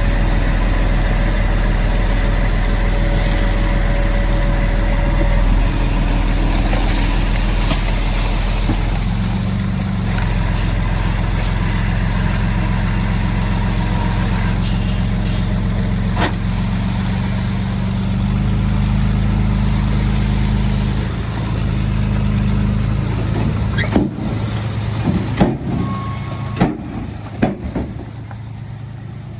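Heavy-equipment diesel engine running loud and steady, its note shifting a few times. Over the last few seconds the engine drops quieter and a run of sharp knocks is heard.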